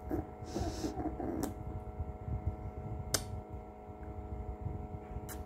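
Handling noise from a phone held against hair and skin: a low rumbling rub with a few sharp clicks. About half a second to a second and a half in, a faint wavering voice-like sound comes through.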